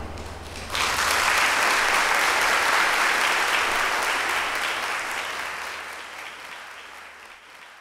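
Audience applauding at the end of an orchestral piece: the last chord of the string orchestra dies away, then applause breaks out about a second in and slowly fades out.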